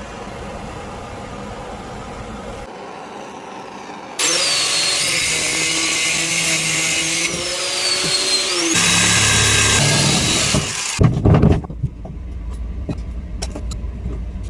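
Power tool motor running in a few separate stretches, loudest in the middle, its pitch sagging and recovering as it works, followed by a handful of knocks and clatter near the end.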